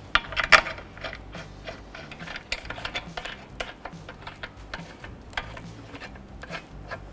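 Lug nuts being spun on by hand and threaded onto wheel studs: irregular metallic clicks and rattles, with a loud clatter about half a second in and scattered clicks after.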